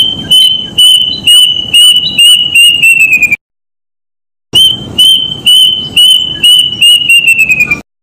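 A cuckoo singing: two runs of clear, high whistled notes, each run speeding up and dropping in pitch toward its end, with a pause of about a second between them.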